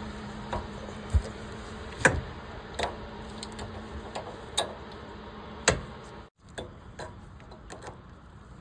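Irregular sharp clicks and taps, about a dozen and unevenly spaced, from hand work on a generator. They sit over a low steady hum that cuts off about six seconds in.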